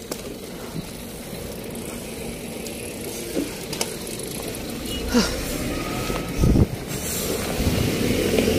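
Road and traffic noise heard while riding along a street, with a few short knocks and a low vehicle rumble that grows louder near the end.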